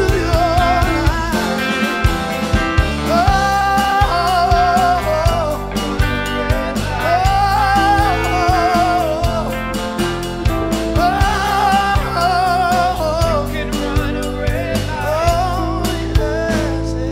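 Live blues-rock band playing: a man singing long, wavering held notes over electric guitars, a drum kit and keyboard.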